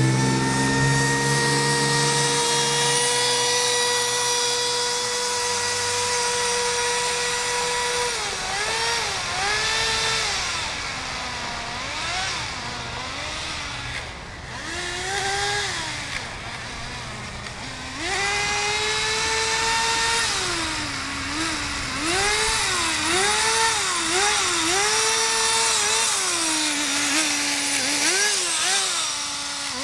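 A Kyosho Nitro Blizzard RC tracked vehicle's small two-stroke .11 nitro (glow) engine runs at high, steady revs for several seconds. It is then revved up and down over and over, fainter in the middle, and drops to a lower idle near the end.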